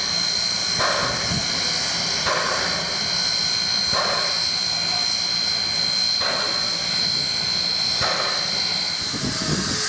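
NZR A class 4-6-2 steam locomotive A428 hissing steam, with a steady high-pitched tone over the hiss and soft puffs about every one and a half to two seconds. The high tone stops shortly before the end.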